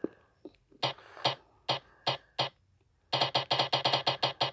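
Spin-the-wheel app's tick sound coming through a phone's screen recording, one click each time the spinning wheel passes a name segment. A handful of spaced ticks come first, then after a short pause a quick run of about seven ticks a second starts near the three-second mark.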